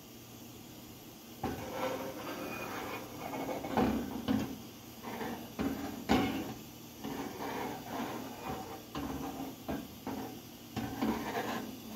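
Frying pan being shifted and swirled on a gas stove's metal grate: irregular knocks and scrapes, quiet for the first second or so, with sharper knocks about four and six seconds in.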